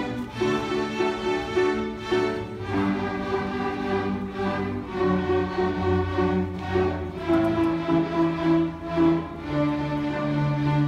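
String ensemble playing: bowed violins over cellos, holding notes and moving from one to the next every second or so.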